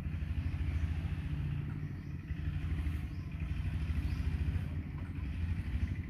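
An engine running steadily with a low rumble.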